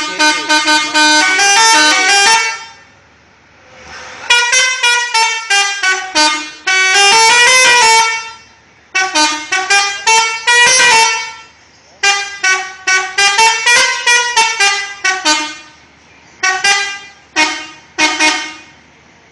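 Six-trumpet 'telolet' bus horn of the Pakistan type playing quick melodies of short, rapid notes that step up and down in pitch. It sounds in about five loud bursts with short pauses between them.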